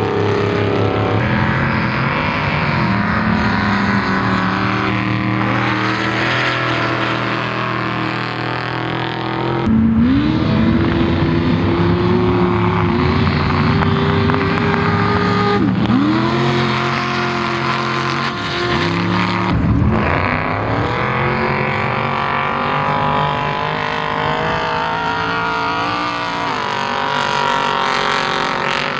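Off-road race vehicles' engines revving hard, their pitch rising and falling as they accelerate and back off. The sound jumps abruptly several times as one shot cuts to the next.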